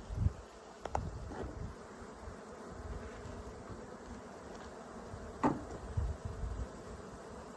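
Honeybees buzzing steadily around an open hive, with a few bees whizzing close past the microphone, and a few low bumps from the hive being handled.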